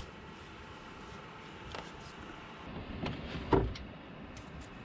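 Low background noise with a few faint clicks and one dull clunk about three and a half seconds in, from tools being handled on the engine.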